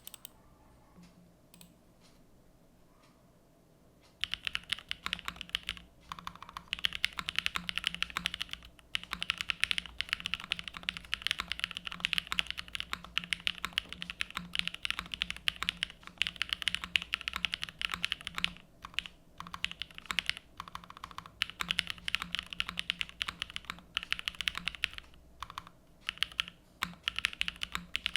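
Typing on a TGR 910 v2 ME mechanical keyboard built with lubed Gateron Cream Soda switches, GMK Lavender keycaps, an aluminium half-plate and an O-ring mount. A few faint key presses, then from about four seconds in fast continuous typing with brief pauses.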